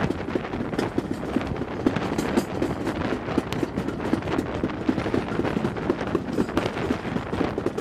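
Steam-hauled passenger train hauled by an LMS Hughes 'Crab' 2-6-0 locomotive, running along the line and heard from an open coach window: a steady, fast clatter of short beats.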